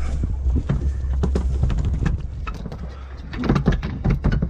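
Freshly landed albacore tuna thrashing and beating its tail against a plastic cooler lid: scattered knocks and slaps that turn into a rapid flurry near the end, over a steady low rumble from the boat.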